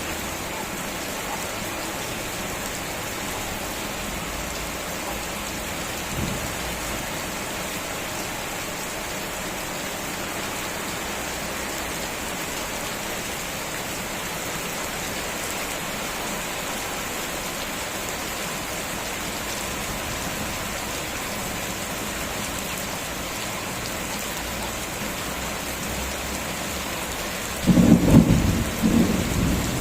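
Steady heavy rain falling, with a loud, low clap of thunder near the end that lasts about two seconds.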